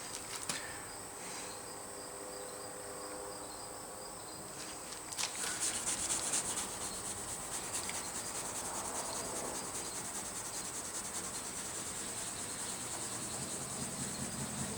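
Crickets chirping: a steady high trill, with a faster, louder pulsing that sets in about five seconds in.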